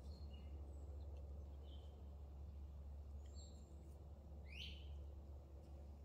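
Faint wild birdsong: scattered short high chirps, with one louder call that sweeps down in pitch about four and a half seconds in, over a steady low rumble.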